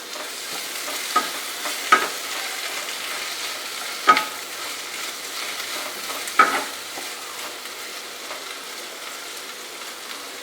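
Onions and ginger garlic paste sizzling steadily in hot oil in a pan, with a spoon knocking against the pan four times as it is stirred.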